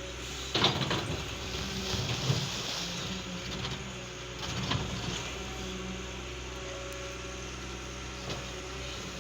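Cat 320 excavator's diesel engine running steadily. It grows louder for a few seconds at a time, with sharp knocks about half a second in, around two seconds and near five seconds, and a lighter one near the end.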